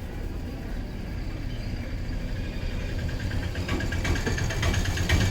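A low engine rumble that grows steadily louder, with a rapid rattling clatter joining about two-thirds of the way in.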